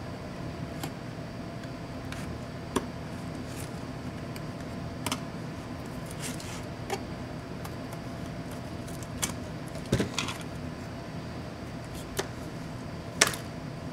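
Scattered small clicks, taps and short scrapes of a pocket-knife blade and fingers working on a laptop's display back cover, lifting cables and tape from it, at irregular moments over a steady low hum. The sharpest click comes near the end.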